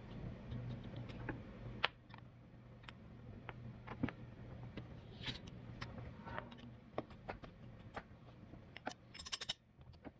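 Faint scattered clicks and clinks, like small metal parts or tools being handled, irregularly spaced with a quick cluster near the end, over a low steady hum.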